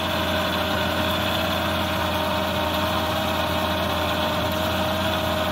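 Car engine idling steadily, a constant hum with a steady tone and no change in speed.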